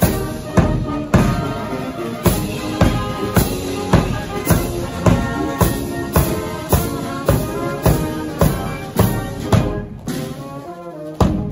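Military brass band playing a march as it goes past: cornets, horns and tubas over a bass drum beating steadily about twice a second, with a brief lull near the end.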